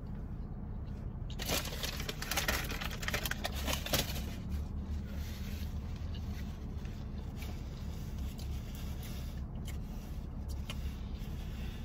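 Crunching and crackling of fast food being eaten close to the microphone, densest for a few seconds from about a second and a half in, then sparser. A steady low hum runs underneath.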